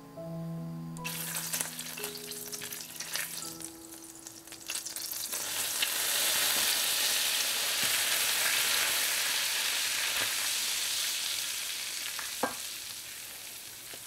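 Butter sizzling in a stainless steel pan while a wooden spoon stirs flour into it, the start of a butter-and-flour roux. The sizzle builds and is loudest in the middle, then eases, with one sharp tap near the end.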